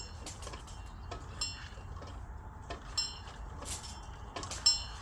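Knocks and scrapes of hand work, with brief high metallic rings about every second and a half.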